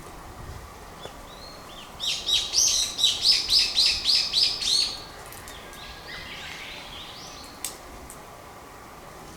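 A songbird singing: a fast run of about a dozen clear, evenly repeated notes, followed by a few fainter calls.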